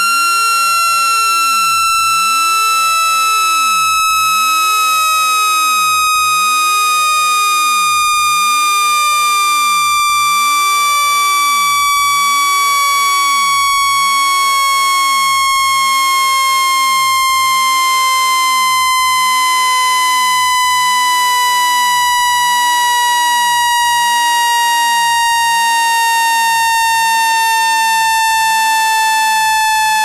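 Synthetic speaker-cleaning tone, a loud, buzzy, overtone-rich tone gliding slowly and steadily down in pitch. It is played through a phone speaker to shake water and dust out of it.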